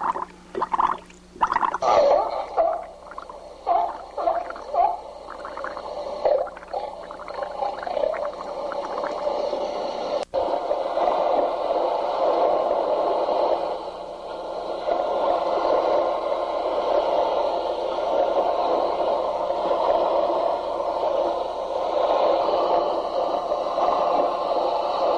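Dolphin squeaks and chirps, short pitched calls one after another for the first several seconds, giving way to a steady wash of ocean waves.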